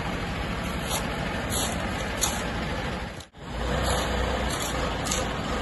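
Engine of a Mercedes-Benz crane truck running as it manoeuvres, briefly cut off about three seconds in and coming back with a deeper low rumble.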